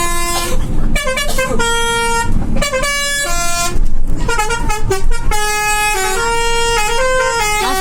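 Bus 'telolet' multi-tone horn playing a tune: runs of several pitches sounding together, stepping up and down from note to note, with short breaks between phrases.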